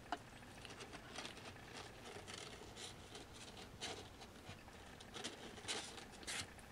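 Irregular light scratching and scuffing, a string of short scratches: a four-week-old Siamese kitten's claws and body against the carpet and wooden board as it clambers about.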